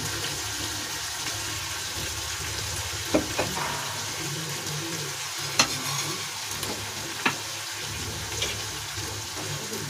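Steady sizzle of a tomato-onion masala frying in a pan on a gas stove, with a few faint pops and ticks.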